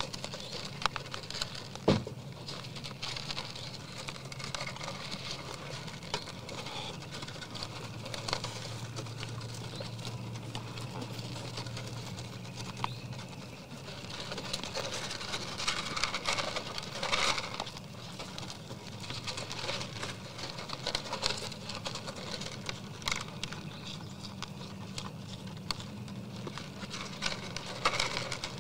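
Whitetail deer eating from a feeder tub at close range: a dense crackle of crunching, chewing and muzzles nudging the feed, with one sharper knock against the tub about two seconds in.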